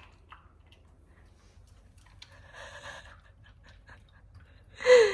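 Faint sniffing and a few small clicks from a dog at its food bowl, then near the end a loud voice exclaiming with a falling pitch.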